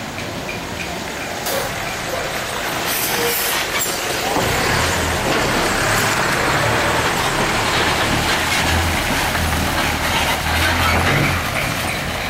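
City bus engine running as the bus drives past close by, growing louder about four seconds in, with a low engine hum over broad road noise.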